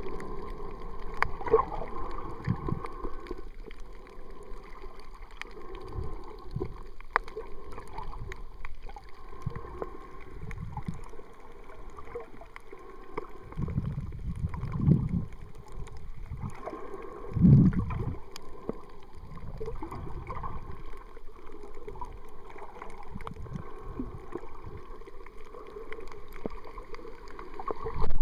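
Underwater water noise picked up by a camera filming while snorkeling over a reef: a steady low wash of moving water with scattered faint clicks, and two louder surges of water about fourteen and seventeen seconds in.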